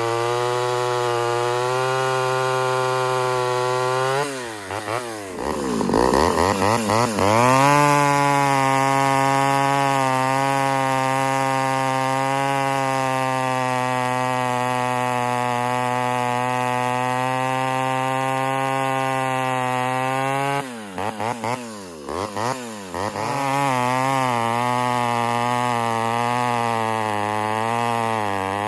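Ported Homelite Super XL Auto two-stroke chainsaw running at high, steady revs. Twice, about four seconds in and again about twenty-one seconds in, the revs dip sharply and climb back.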